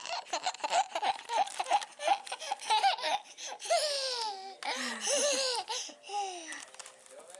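Toddler laughing, first in a quick run of short 'ha-ha' bursts, then in longer squeals that fall in pitch.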